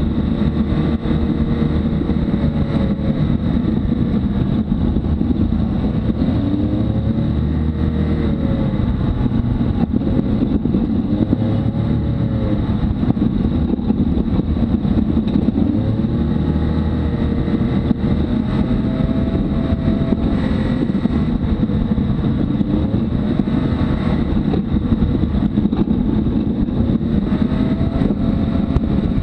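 Can-Am Maverick X3 side-by-side's turbocharged three-cylinder engine running under varying throttle, its pitch rising and falling every second or two, over a steady low rumble of the vehicle on a rough dirt trail, heard from inside the open cockpit.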